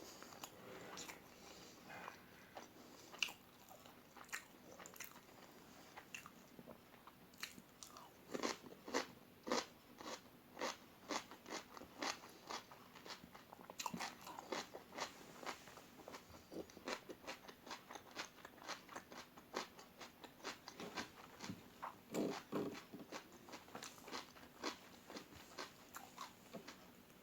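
Crunchy bites and chewing of crispy fried omelette: scattered crunches at first, then a dense run of quick, crackly crunches from about eight seconds in.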